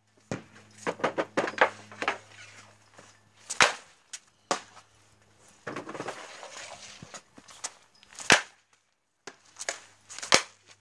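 Hockey shots: sharp cracks of a stick striking the puck and the shot hitting the goalie or net, a quick run of knocks about a second in, then single loud cracks about four, eight and ten seconds in.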